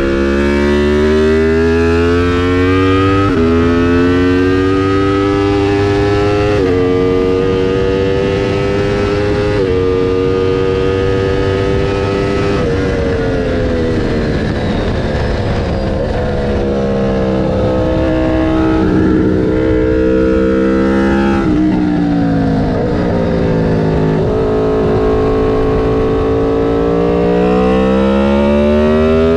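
Aprilia RSV4 Factory's V4 engine under hard acceleration, its pitch climbing and then dropping sharply at three quick upshifts in the first ten seconds. It falls away through the middle as the bike slows, then pulls up through the revs again near the end.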